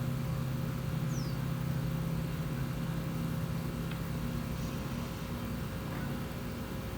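Recorded sea waves as a steady low rumble of surf, with a brief high falling chirp about a second in.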